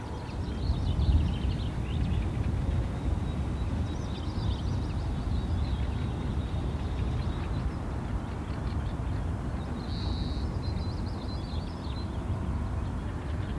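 Wild birds giving short, high chirps and a brief trill now and then, over a steady low rumble of outdoor background noise.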